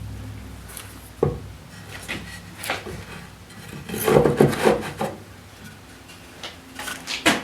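Wooden jig boards being handled and rubbed against each other on a table-saw top. A sharp knock comes about a second in, a busy run of rubbing and knocking follows around the middle, and another sharp knock comes at the end.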